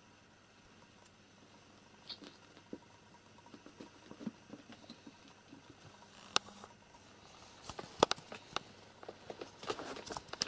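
Light scattered pattering and scuffling of kittens playing on a carpet, with a few sharper clicks in the second half.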